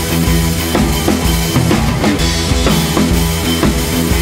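Background music with a steady drum-kit beat over sustained bass notes.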